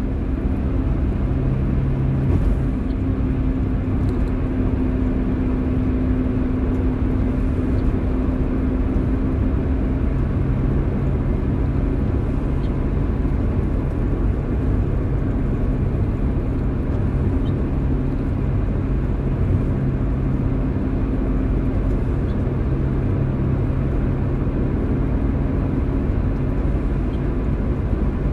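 A car driving in the rain: a steady low rumble of engine and road noise, with a few faint scattered ticks.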